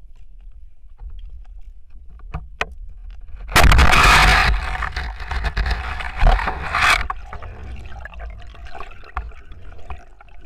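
Underwater spearfishing: a few faint clicks, then about three and a half seconds in a sudden loud rushing noise that lasts about three seconds as a fish is speared and struggles on the spear, followed by quieter underwater crackling as it is grabbed by hand.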